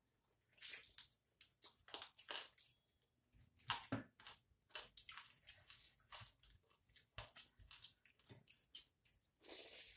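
Close-up eating sounds: wet chewing and lip smacks over mouthfuls of rice, in short irregular bursts, with soft sounds of fingers gathering rice on steel plates.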